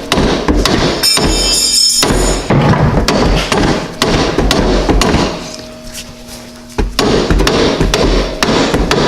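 Repeated blows of a soft-face hammer on the front strut's lower mounting bolts, knocking them out of the strut and knuckle. The strikes come thick and fast, ease off for a moment a little past the middle, then start again.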